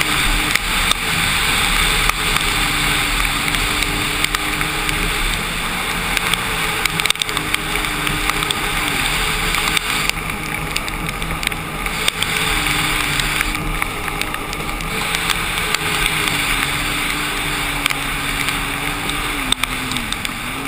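Sea-Doo RXT-X 260 RS personal watercraft running at speed over choppy water, its engine note rising and falling in steps with the throttle, under a steady rush of wind and spray.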